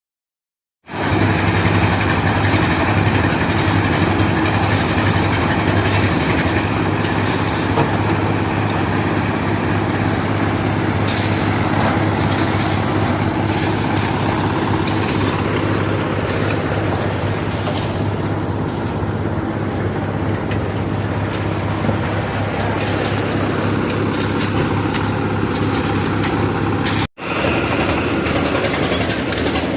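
Engines of two concrete-hoist (lift cor) machines running together at a steady pace, a loud steady hum with a noisy rattle over it. The sound comes in abruptly about a second in and cuts out for a moment near the end.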